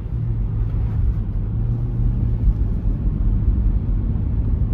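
Steady low rumble inside the cabin of a Lexus GX460 SUV under way on a snowy road: a steady engine hum sets in at the start over low road noise, with little tyre noise above it.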